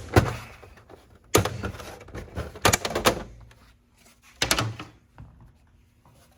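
Several knocks and clicks of hard plastic as a PlayStation 4 Pro console is handled and its casing opened, growing quieter toward the end.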